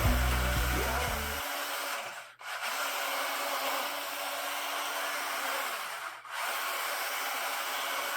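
The song fades out in the first second and a half, leaving a steady hiss with a faint hum, broken by two brief dropouts.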